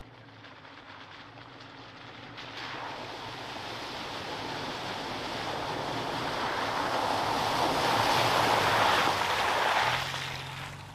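Toyota Tacoma pickup driving through a muddy puddle, its tyres splashing and churning the water, with the engine running low underneath. The rushing splash grows louder as the truck comes closer, is loudest near the end, then drops away.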